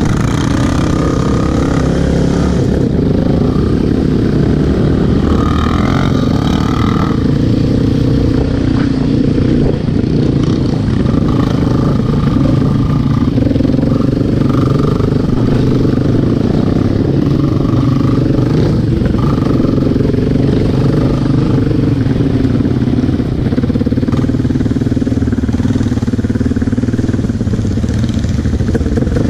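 ATV engine running steadily along a dirt trail, heard close up, its pitch rising and falling a little with the throttle.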